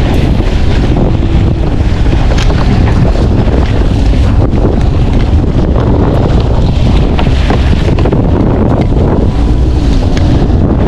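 Wind buffeting the microphone on a boat under way, a loud steady rumble with motor and water noise beneath.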